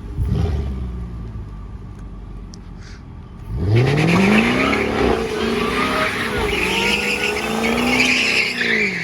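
Jaguar F-Type R's 5.0-litre supercharged V8 blips once. About three and a half seconds in, it revs up sharply and is held high with the pitch wavering, while the rear tyres squeal through a donut, loudest near the end.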